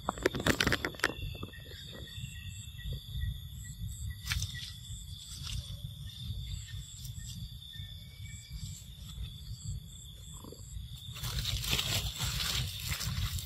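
Leaves and branches rustling and crackling as monkeys climb through a tree, loudest in the first second and again near the end, over a steady high-pitched insect drone and a low rumble of wind on the microphone.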